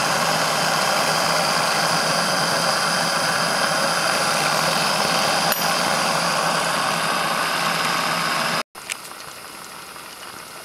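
Saito T2DR twin-cylinder model steam engine running smoothly on live steam: a steady, even hiss of exhaust steam and engine running. About two-thirds of the way through the sound cuts out for an instant and comes back much quieter.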